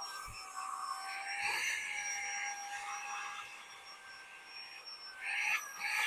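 Cordless handheld vacuum cleaner running with a steady high whine, its crevice tool drawn along a couch seam. The pitch wavers slightly and the rush of suction rises and falls as the nozzle presses into the seam.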